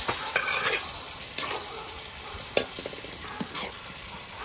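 Chicken pieces sizzling as they are stir-fried in hot rendered chicken fat with lemongrass and garlic, with a few knocks and scrapes of a utensil against the pan. The sizzle gradually dies down.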